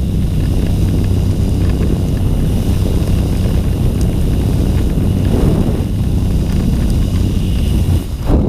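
Loud, steady wind rush buffeting a helmet camera's microphone in the open door of a skydiving aircraft, with the aircraft running. It carries on as the jumpers leave the plane into freefall, with a brief dip about eight seconds in.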